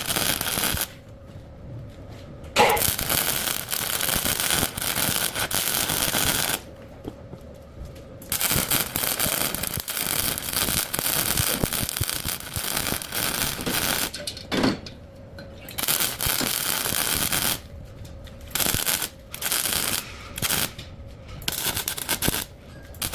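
Electric arc welding on a broken truck axle: a loud, even crackle that starts and stops abruptly about eight times as the arc is struck and broken.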